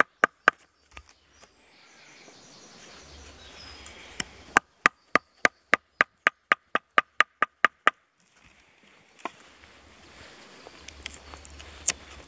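Knife work on a wooden stick resting on a chopping stump while cutting a notch with a Mora Bushcraft Black carbon-steel knife: sharp knocks, each with a brief ring. After a quiet stretch a run of about a dozen comes at roughly four a second, followed by two single knocks.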